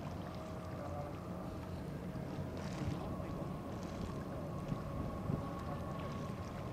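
Steady low outdoor background rumble with faint held tones and a few small clicks.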